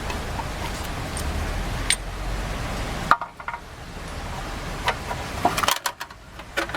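A series of sharp metallic clicks and clinks of loose metal parts or hand tools being handled, over a steady background hiss that drops out abruptly twice.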